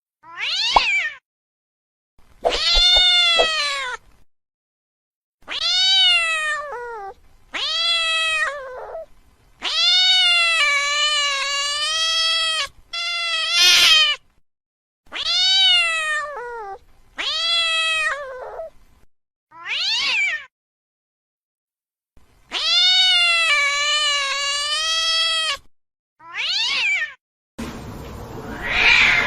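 A domestic cat gives angry yowling meows: about eleven separate drawn-out calls, each rising and then falling in pitch. Two of them are long and wavering. Near the end comes a rougher, noisier sound.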